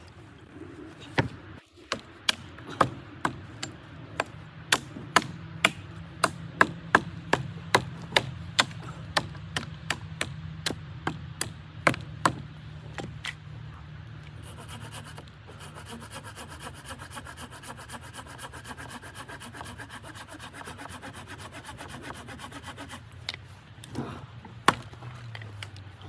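A run of sharp knocks, about two a second, for roughly twelve seconds, then a steady hum, and two or three more knocks near the end.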